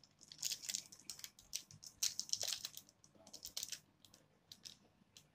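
Small plastic seasoning sachet crinkling and rustling in the fingers as dried herbs are shaken out of it: a run of short crackles that thin out after about four seconds.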